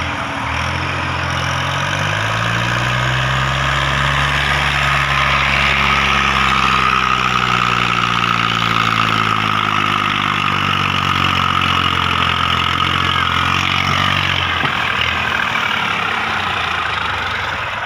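Massey Ferguson 240 tractor's three-cylinder diesel revving up over the first few seconds and held at high revs while it pulls a loaded trolley. It drops back down near the end.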